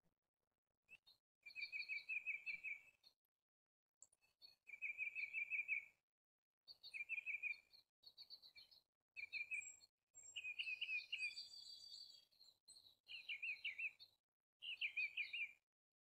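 Bald eagles calling: about seven bursts of rapid, high chittering notes, each lasting a second or so, with silent gaps between them and a denser, overlapping stretch near the middle.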